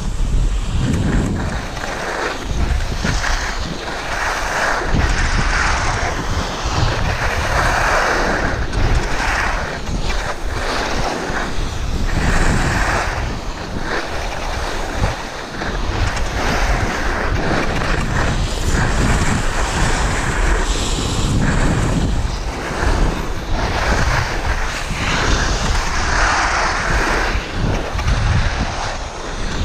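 Skis hissing and scraping over packed, groomed snow, swelling and fading turn by turn, with wind rumbling on the camera microphone.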